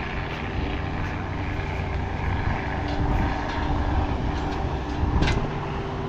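Diesel engines of farm machinery running steadily: a low, even drone with a faint steady whine over it. A brief sharp sound about five seconds in.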